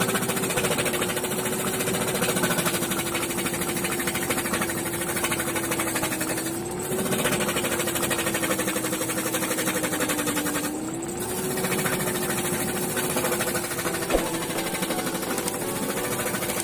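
A small electric motor-driven machine running steadily with a fast, even rattle and a hum; its pitch and level sag briefly twice.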